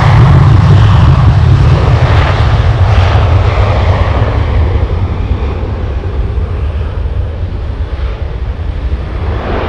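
Boeing 737-800 jet engines at takeoff thrust on the takeoff roll: a loud, low jet roar that fades steadily as the aircraft accelerates away down the runway.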